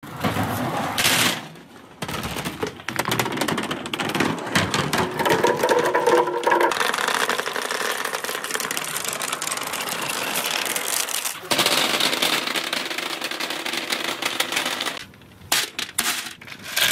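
Glass marbles and crystal balls clattering as they roll and bounce down a perforated board slope: a long, rapid run of clicks and knocks.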